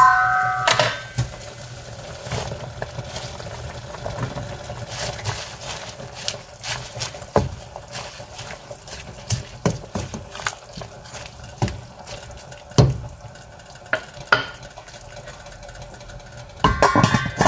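Soup boiling in a stainless steel pot while a wooden spoon stirs in leafy greens, with many light knocks of the spoon against the pot. A pot lid rings against the rim in the first second and again near the end.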